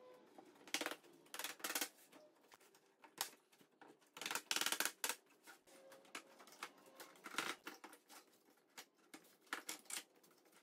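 Wooden crib panel and clamps being handled during a glue-up: irregular knocks, clicks and short scrapes, with a denser cluster about four to five seconds in.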